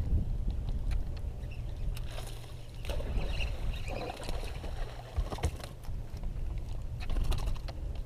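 Wind and water on an open boat's deck-mounted camera microphone: a steady low rumble, with scattered light clicks and knocks. A rougher rustle of noise comes between about two and five seconds in.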